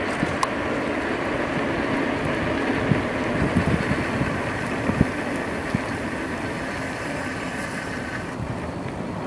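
Riding noise from an A2B Metro electric bike under way: a steady rush of wind and road noise with a few short knocks. A faint high steady tone comes in about six and a half seconds in and stops shortly before the end.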